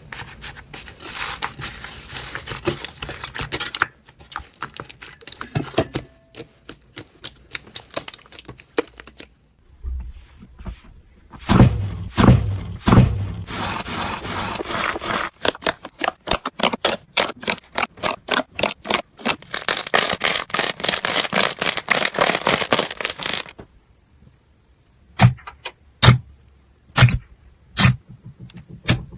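Slime being squeezed, poked and stretched by hand, giving runs of sharp clicks, pops and crackling, with denser stretches of crackling in places. The sound changes abruptly a few times, with short quiet gaps between clips.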